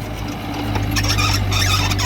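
Heavy earthmoving machine's diesel engine running steadily, with scattered metallic clanks and scraping over it.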